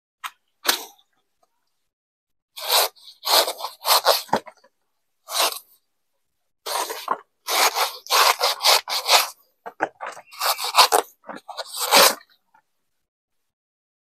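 A blade cutting and scraping into the fibrous stem of a pisang tanduk (horn plantain) in irregular runs of quick strokes, with short pauses between runs.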